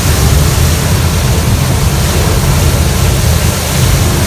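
Water crashing and spraying against a military truck's windshield and cab as it fords deep water, heard from inside the cab over the steady low rumble of its diesel engine.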